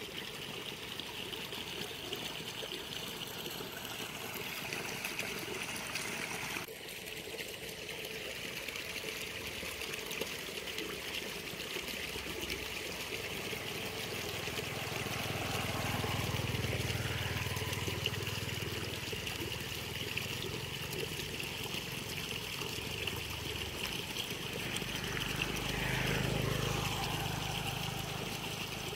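Small motorbikes passing on a dirt road, over a steady high hiss in the background. One rises and fades about halfway through, and another passes near the end.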